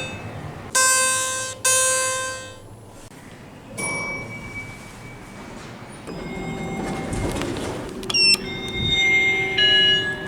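Elevator signals from several lifts in turn: two bell-like chime strokes about a second apart, then a held electronic beep, then more electronic chime tones over a low machinery hum in the second half.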